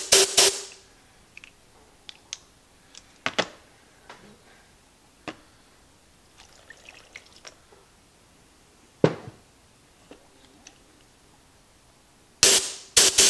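Short blasts of compressed air from a handheld blow-gun nozzle, fired through the small drain passage of a coffee carafe lid to clear caked coffee powder from it. There is a double blast at the start, single blasts about 3 and 9 seconds in, and a quick cluster of blasts near the end, with a brief trickle of water poured over the lid in between.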